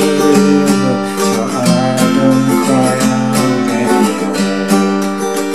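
Capoed steel-string acoustic guitar being strummed, changing chord about a second and a half in and again about four seconds in.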